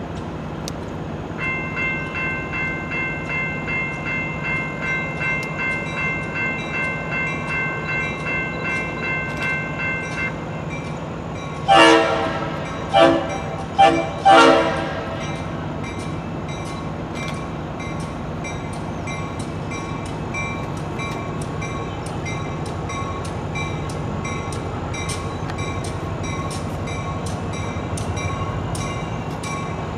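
Locomotive horn sounding four blasts about twelve seconds in, two longer ones around two short ones, over the steady low rumble of a train. Before the horn a bell rings about twice a second; after it a ringing tick repeats at a similar pace.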